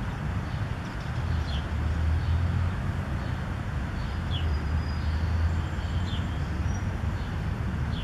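Outdoor background of a steady low rumble, with a bird's short, high, falling chirp repeating every two seconds or so.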